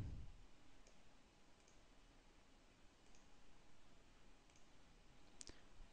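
Near silence with about five faint computer mouse clicks, the clearest one near the end.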